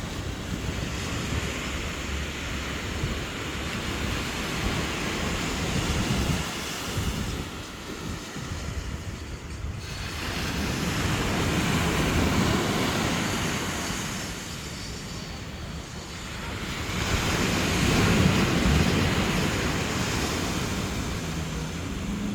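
Sea waves washing onto a sandy beach, rising and falling in slow surges, with wind buffeting the microphone.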